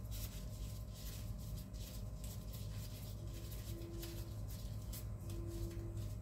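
Plastic-gloved hands working raw ground beef-and-chicken meatball paste, faint soft squishing and glove rustling as the paste is flattened in the palm. A steady low hum runs underneath.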